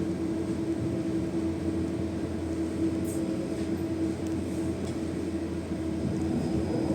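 Steady running noise of a city public-transport vehicle heard from inside the cabin, with a constant low hum and a steady motor tone and a few faint ticks.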